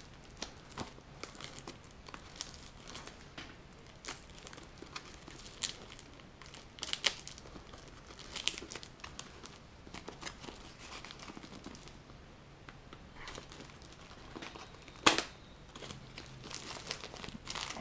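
Yellow plastic mailer envelope being worked open by hand: the packaging crinkles and tears in irregular rustles and crackles, with two sharper snaps, one at the start and one about fifteen seconds in.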